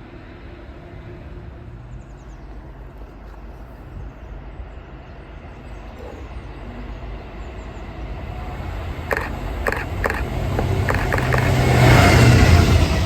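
A train approaching: a diesel locomotive's engine drone grows steadily louder, with a handful of sharp clicks about two-thirds of the way in as it nears.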